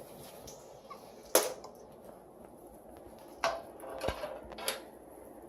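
Hardware being handled inside a desktop PC case while a power supply is fitted. There is one sharp click about a second and a half in, then a few lighter clicks and a short low thump near the end.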